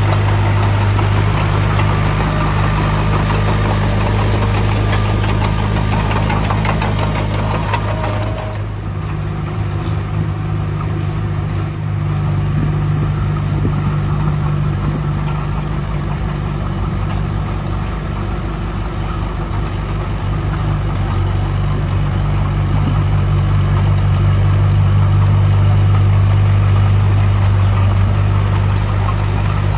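Heavy diesel engine of earthmoving machinery running steadily. It comes with higher-pitched clatter and a faint whine over the first eight seconds or so, which then drop away, and the engine swells a little about three-quarters of the way through.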